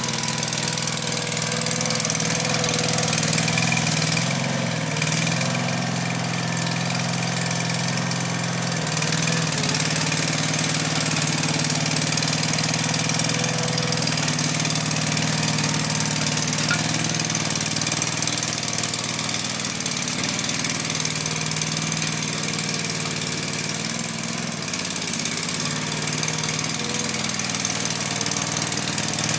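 Kanga mini loader's engine running steadily under load while it drives a toothed power-rake attachment through bare soil. The engine note eases off a few seconds in and again near the end.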